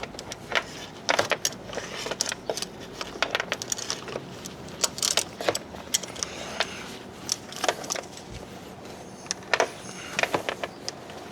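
Irregular metallic clicks and clinks of an improvised hand tool working the oil filter housing cap as it is tightened snug.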